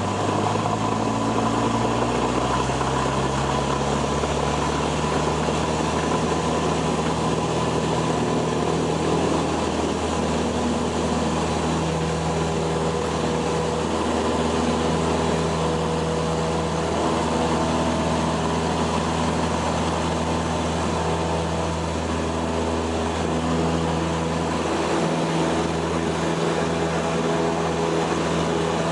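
Piston engine and propeller of a Cessna light aircraft running steadily, its pitch rising a little over the first few seconds and then holding even.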